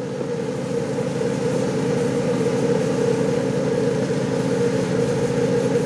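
An engine running steadily at a constant speed, with an even drone that does not change.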